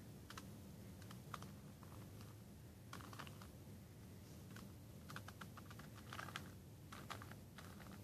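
Plastic Rubik's Cube being turned by hand: faint, quick plastic clicks as the layers snap round, coming in short clusters with pauses between them.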